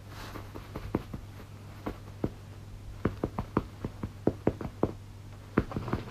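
An irregular run of sharp clicks and taps made by a person to catch a kitten's attention, a few at first and then coming in quick clusters from about halfway through. A steady low hum runs underneath.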